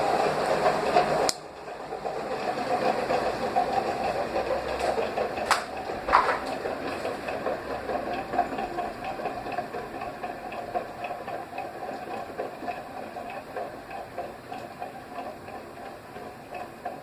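Tron Ipanema ceiling fan running with a steady motor hum. About a second in, a click and a sudden drop: the fan is switched off, and the blades coast down while its sound fades slowly. Two short clicks come around five and six seconds in.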